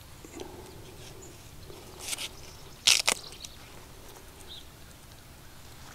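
Knife cutting into a raw, peeled Kossack kohlrabi bulb: two short crisp crunches about a second apart, the second louder.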